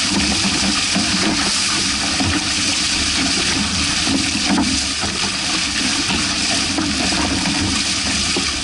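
Water rushing and splashing along the hulls of a Hobie 16 catamaran under sail, a steady loud wash with no let-up.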